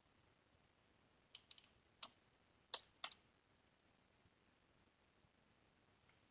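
Computer keyboard keystrokes: a quick run of four light taps about a second and a half in, then three single, harder key presses over the next second, the last two the loudest.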